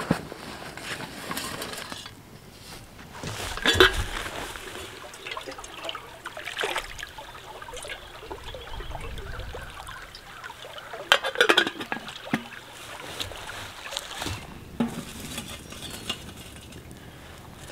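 A metal mug scooping stream water and pouring it into an aluminium coffee pot, with several sharp metal clinks of the cup and pot.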